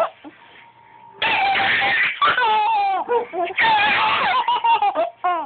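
Baby laughing hard in long, high-pitched squeals broken by gasps, starting about a second in after a short quiet pause.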